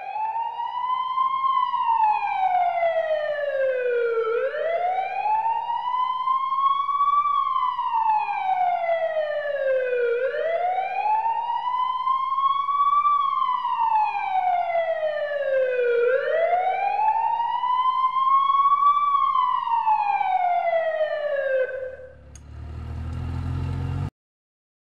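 Emergency vehicle siren wailing: a single tone sweeping slowly up and down, about six seconds per rise and fall, four times over. Near the end the wail stops, a low rumble with hiss takes over for about two seconds, and then the sound cuts off suddenly.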